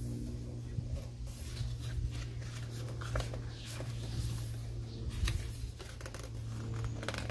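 Pages of a large photobook being turned by hand: paper rustling and flapping with small scattered clicks, over a steady low hum.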